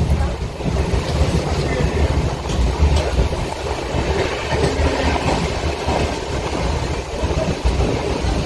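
Indian Railways long-distance express train running on the track: a steady rumble of the coaches' wheels on the rails.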